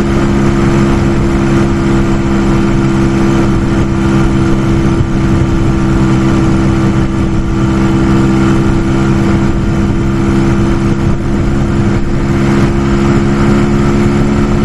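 Brixton Felsberg 125's single-cylinder four-stroke engine running steadily at full throttle near its top speed of about 95 km/h, its pitch held flat. Steady wind rush runs under it.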